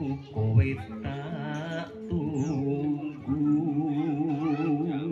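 Music played through a large outdoor sound system of stacked speaker cabinets: a wavering, vibrato-laden melody with singing over a steady bass line.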